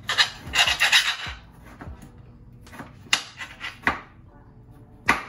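Knives sawing and scraping through watermelon rind: a rough rasping run of about a second, then several short scrapes and knocks.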